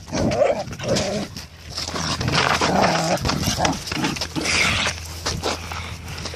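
Dogs growling and vocalising in short bursts as two dogs play roughly over a ball.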